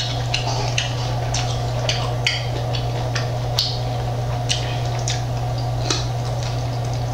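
Close-miked chewing of crunchy barbecue chicken wings: irregular crunches and wet mouth clicks, over a steady low hum.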